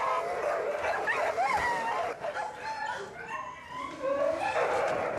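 Dogs barking and yelping in a dogfight, heard on a film soundtrack.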